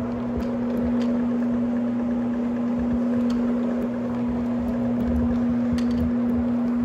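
Carpet-cleaning floor machine running with a steady motor hum as its pad scrubs the carpet, with scattered faint ticks.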